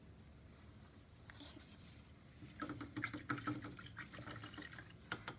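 Painting supplies being handled: a paintbrush set down and moved about, making faint scattered clicks, then a cluster of light taps and clicks a little past halfway.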